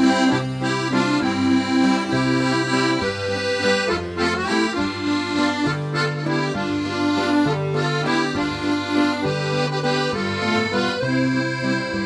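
Accordion playing the instrumental introduction to a slow sea-song waltz, sustained chords over a bass note that changes about once a second.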